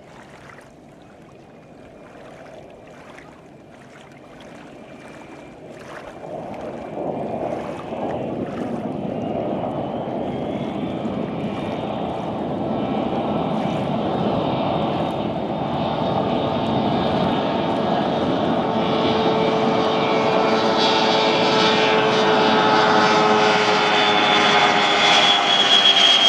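Beriev Be-200 amphibian's twin turbofan jet engines growing steadily louder as the aircraft skims low over the water and closes in, a rushing noise with a high whine on top that is loudest near the end.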